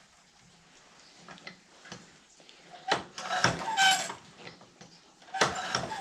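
Woodland Mills tooth setter being worked on a steel bandsaw blade: two bursts of metallic clicking and clanking, with the blade ringing briefly, about three seconds in and again near the end.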